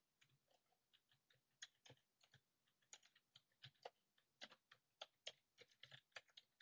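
Faint typing on a computer keyboard: a quick, irregular run of keystroke clicks as a search phrase is typed.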